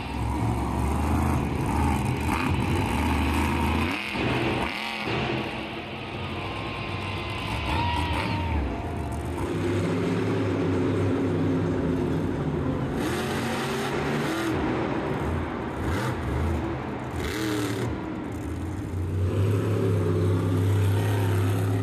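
Monster truck's supercharged V8 engine running hard and revving, its pitch stepping up and down with the throttle. A few short, sharp bursts of noise come in the second half.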